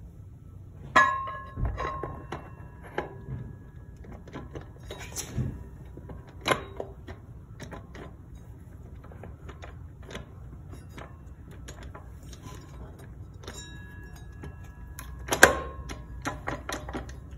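Steel transmission parts knocking and clinking as a drum is worked into a 904 TorqueFlite's aluminium case, with two sharp ringing clanks, one about a second in and the loudest near the end, and lighter knocks between.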